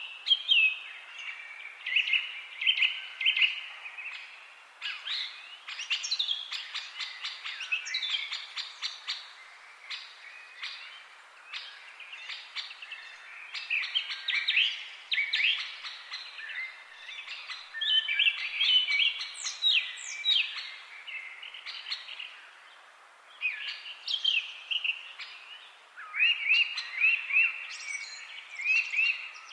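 Several songbirds chirping and singing: quick clusters of high chirps and short gliding notes that come and go, over a faint background hiss.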